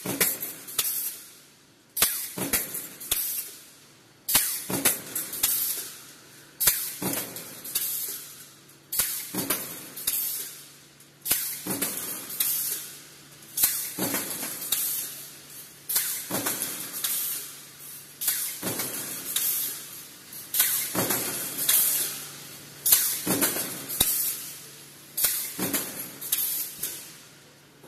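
Mechanical C-frame power press running a stamping die continuously, about one stroke every two and a half seconds: each stroke a sharp clank followed by a hiss that fades out, over a low steady hum.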